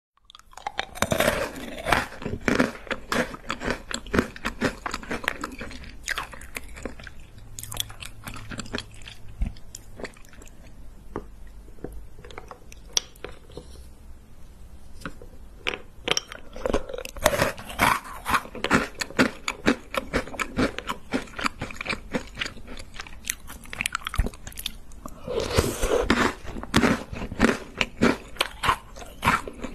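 Close-miked crunching and chewing of chocolate cereal balls, a rapid crackle of sharp crunches. The crunches come in busy spells about a second in, around the middle and near the end, with a sparser stretch between the first two.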